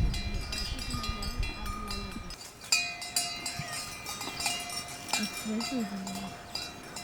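Cowbells hung on cattle clanking irregularly as the animals move, several bells ringing at different pitches.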